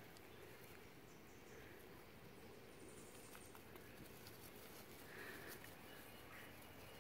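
Near silence: faint outdoor background, a steady low rumble with a few faint ticks.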